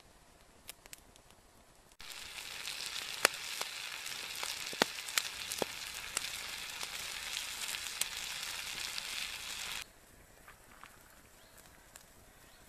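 A frying pan of beans and meat sizzling over a wood campfire, a steady hiss with sharp pops. It starts abruptly about two seconds in and cuts off near the end; before and after there are only faint scattered ticks.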